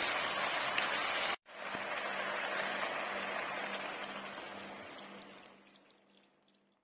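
Chicken sizzling in a hot non-stick pan as water is poured in. The hiss breaks off for an instant about a second and a half in, then returns and dies away over the last two seconds as the water cools the pan.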